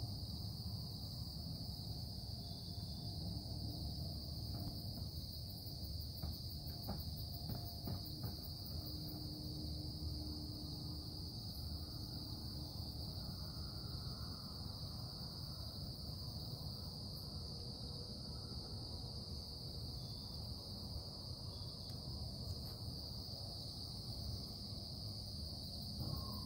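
Industrial production noise: a steady low rumble with a constant high-pitched hiss above it and a few faint, brief tones.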